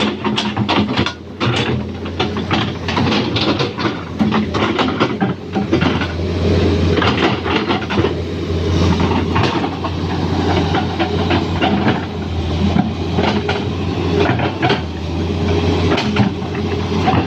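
Excavator's diesel engine running steadily under a dense, irregular metallic clatter, typical of steel tracks and undercarriage as the machine travels.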